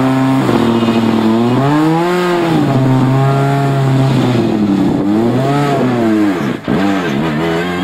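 Škoda Fabia S2000 rally car's 2.0-litre four-cylinder engine revving up and down through a corner, holding steady between the rises and falls. About six and a half seconds in, the revs drop sharply for a moment before it pulls away again.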